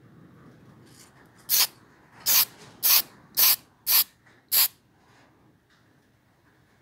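Aerosol can of acrylic gloss black lacquer spraying in six short bursts, about 0.6 s apart, starting about a second and a half in.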